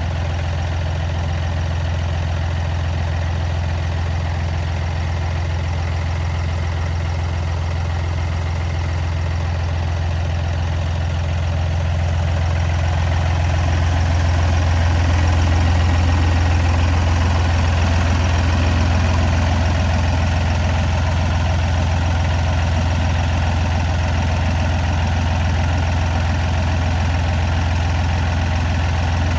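Fendt 240S tractor's three-cylinder diesel engine idling steadily. It grows somewhat louder about halfway through as the front of the engine comes closer.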